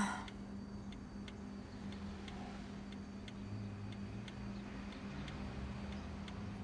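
A clock ticking faintly and steadily, about two ticks a second, over a low steady hum, with a brief soft noise right at the start.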